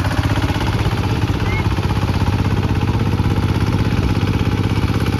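Single-cylinder diesel of a Kubota ZT155 walking tractor chugging loudly and steadily with a rapid, even beat. It is working under load, hauling a sand-laden trailer through mud.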